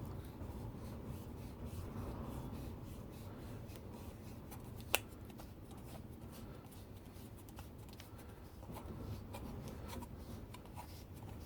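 Garden-hose quick-release fitting being screwed into a water container's cap: faint rubbing and small ticks of handling, with one sharp click about five seconds in.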